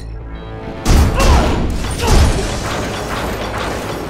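A low rumble, then a sudden loud boom about a second in, a second heavy hit about a second later, and a sustained noisy din after it.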